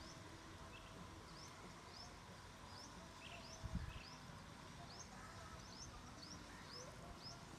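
Faint bird calls: a short, rising chirp repeated about twice a second. A single low thump comes a little past halfway.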